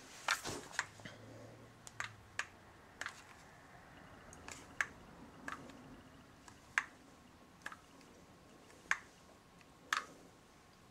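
Scattered sharp clicks, about a dozen at uneven intervals, from a handheld infrared thermometer being triggered and handled.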